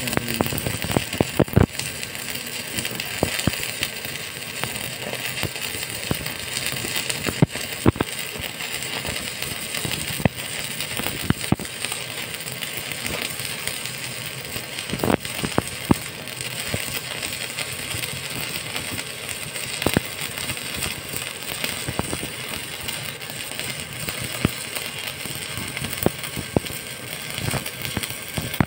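Stick (SMAW) welding arc crackling steadily as a bead is run on steel, with scattered sharp pops.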